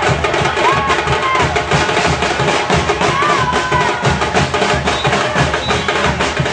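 Loud percussion-driven music: dense, fast drum beats with clicking wood-block-like strokes, and a melody line bending in pitch above them.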